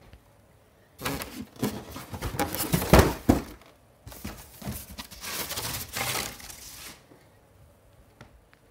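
Packaging from a boxed collectible statue being handled and rummaged through: rustling and crinkling with knocks. It comes in two spells, one about a second in with a sharp knock near its end, and a second spell about four seconds in.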